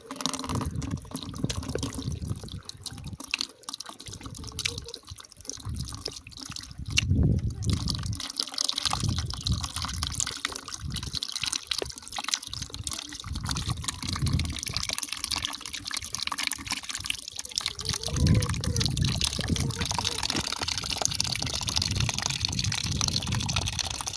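Water running and splashing: a steady hiss with irregular low rumbles.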